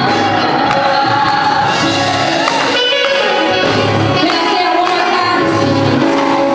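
Gospel mass choir singing a song with keyboard accompaniment, low bass notes pulsing underneath.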